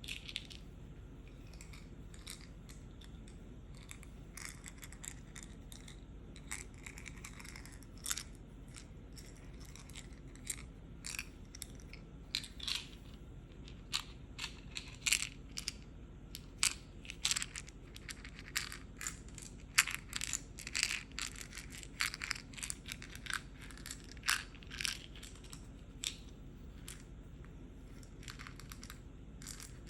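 Fingertips and nails tapping on a medicine pill box in quick, irregular clusters of light clicks. The taps are sparse at first, come thick and loudest through the middle, then thin out near the end.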